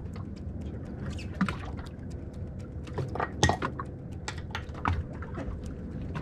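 Small waves lapping and slapping against the fiberglass hull of a drifting boat: irregular light splashes and clinks over a low steady rumble, with one sharper knock about three and a half seconds in.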